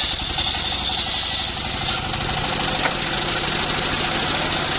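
Engine of a homemade circular sawmill running steadily, with an even, fast beat and a steady high whine above it.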